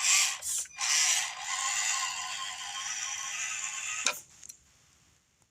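Axial SCX24 mini RC crawler's small electric motor and geartrain whirring under load on carpet: a few short spurts of throttle, then a steady run that stops about four seconds in with a click.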